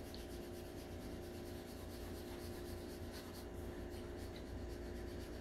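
Pencil shading on paper: faint, quick strokes of graphite rubbing as dark values are laid in with light pressure.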